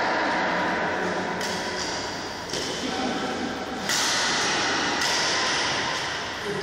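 Badminton doubles rally in a large, echoing sports hall: thuds of racket hits on the shuttlecock and players' footfalls, over a steady wash of background voices and room noise.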